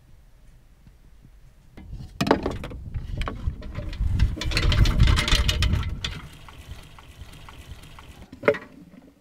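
Rushing, gushing noise of liquid nitrogen boiling off as a cryogenic semen storage tank is opened. It swells about two seconds in, is loudest midway, then sinks to a faint hiss, with one sharp knock near the end.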